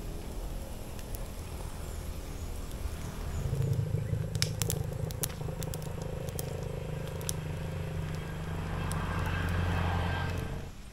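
An engine running with a steady low hum that swells about three and a half seconds in and again near the end, with a few sharp clicks in the middle.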